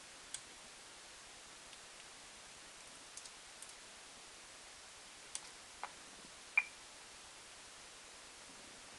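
A few faint, scattered clicks and small handling knocks over steady background hiss. The loudest comes about six and a half seconds in and carries a brief high chirp.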